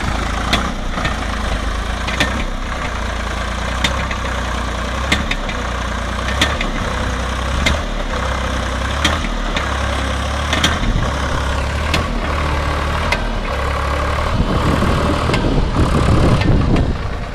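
Old tractor's diesel engine running under load as it strains to pull its stuck, loaded trolley out of soft mud, with sharp clicks about once a second. The engine grows louder near the end.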